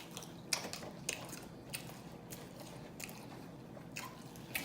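A person chewing food close to the microphone, with scattered short mouth clicks.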